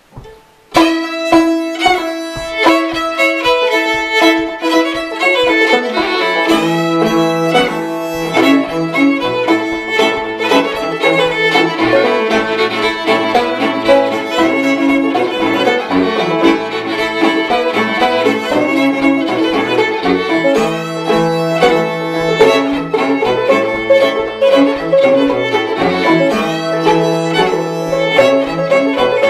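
Old-time string band playing a fiddle tune: fiddle lead with five-string banjo and bowed cello. The fiddle starts about a second in, and the cello's low notes join about six seconds in.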